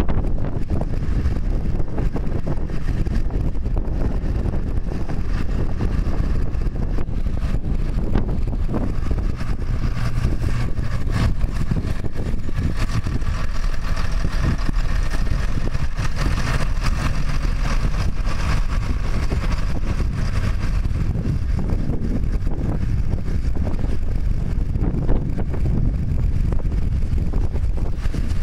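Fendt 926 tractor's six-cylinder diesel engine running steadily as it drives past pulling a loaded manure spreader, fuller and brighter in the middle as it passes closest, with some wind on the microphone.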